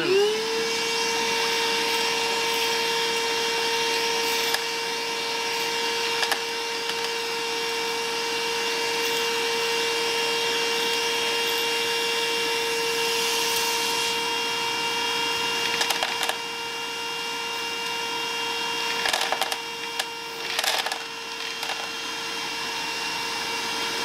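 Bauer 20-volt cordless 3.5-gallon wet/dry vacuum switching on and spinning up, then running with a steady whine as it sucks up screws, which click and clatter through the hose now and then.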